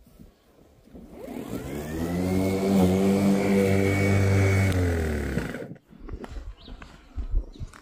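Small brushless electric motor of a Parkside PRMA 40-Li B3 cordless lawn mower spinning up with a rising whine, running steadily for about three seconds, then winding down and stopping just past the middle. A few faint low knocks follow.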